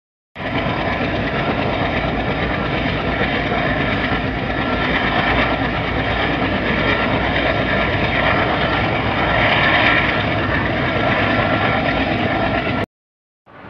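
A passenger train running at speed, heard from inside a coach through an open window: a steady rumble of wheels on rails mixed with rushing air. It cuts off suddenly near the end.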